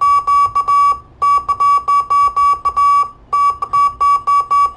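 Morse code from a QRP Pixie transmitter, sent by hand on a straight key and heard through a transceiver tuned to its frequency. A high-pitched beep keys on and off in dits and dahs in quick groups, with two short breaks. The sending is a bad hand, and the received signal shows the Pixie is transmitting fine.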